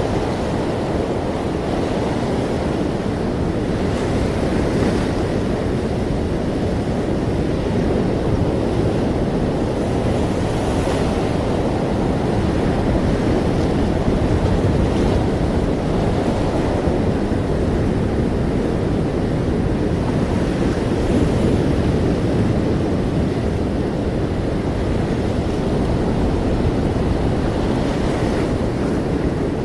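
Ocean surf: a steady wash of waves with a deep rumble, swelling slightly now and then.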